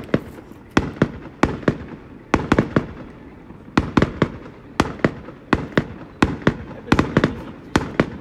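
Fireworks display bursting: sharp bangs, about three a second, in irregular quick clusters.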